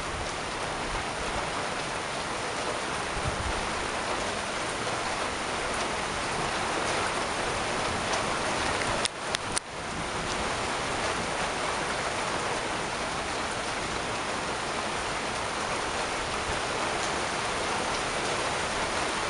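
Heavy thunderstorm downpour: rain pouring steadily, a dense even hiss, with a brief dip and a couple of clicks about halfway through.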